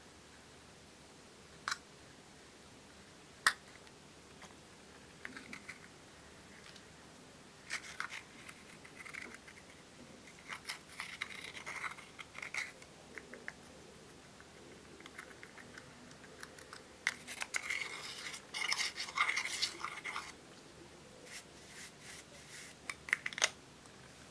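A thin metal tool scraping and crumbling pressed blush powder out of makeup compacts, in scratchy spells. A couple of sharp clicks come in the first few seconds.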